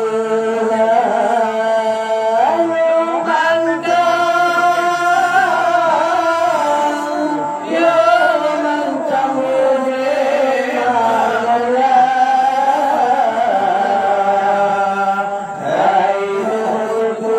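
A man's voice singing an Acehnese qasidah (devotional song) into a microphone, in long drawn-out notes with wavering, ornamented turns.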